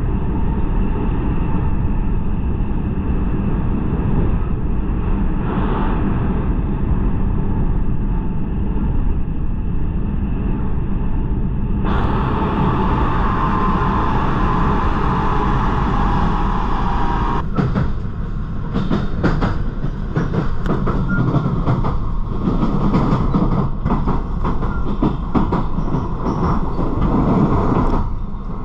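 Local passenger train running, heard from inside the carriage: a steady low rumble of wheels and motors. In the last third the wheels clack repeatedly over the rail joints.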